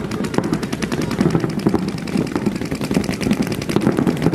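Several paintball markers firing rapidly and continuously during a speedball match, a dense stream of sharp pops many times a second.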